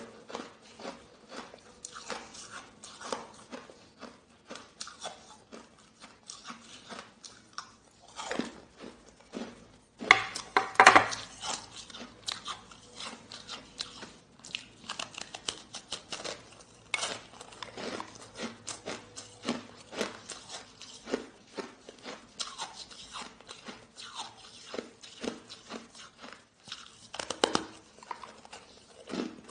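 Hard, crunchy shaved ice being bitten and chewed: a continuous run of irregular crunches, with a louder burst of crunching about ten seconds in.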